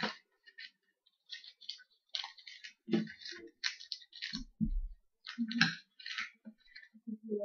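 Trading-card pack wrapper crinkling and tearing open in a string of short, irregular crackles, with cards being handled and a few dull bumps about halfway through.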